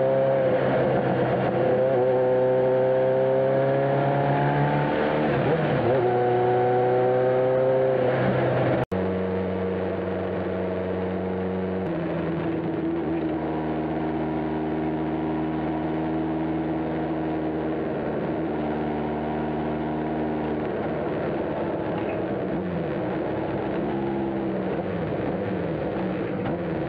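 Motorcycle engine under way, heard from the bike itself while riding. Its pitch climbs steadily through a gear and drops back at a shift about five or six seconds in. After a sudden break around nine seconds it runs at a steadier cruise, with another change in pitch near twelve seconds.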